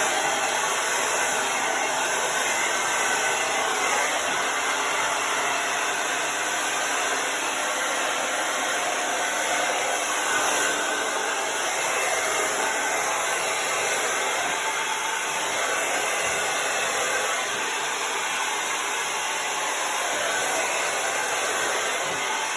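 Handheld hair dryer blowing steadily, a continuous even rush of air and motor noise.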